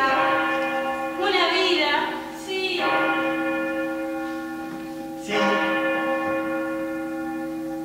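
Church bell tolling slowly: three strokes, each one ringing on into the next.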